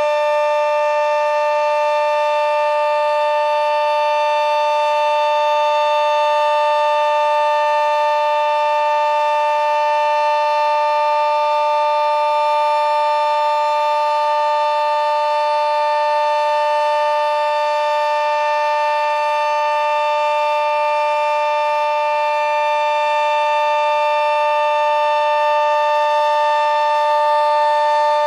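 Sentry 40V2T omnidirectional two-tone civil defense siren sounding a steady full-alert tone: two held pitches sounding together, very loud and unwavering, with no rise or fall.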